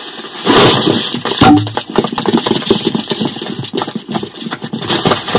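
Film fight-scene foley played back: a dense, rapid crackle and rustle of many small hits and scrapes, with a few heavier thuds mixed in. It includes the separate layer made for straw or hay flying through the air.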